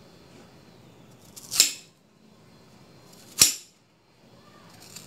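Knife chopping through raw kamangeg root, two sharp cuts about two seconds apart.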